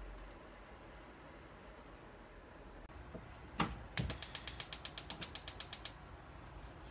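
Gas stove burner knob turned with a loud click, then the stove's igniter clicking rapidly and evenly, about nine clicks a second, for about two seconds before it stops.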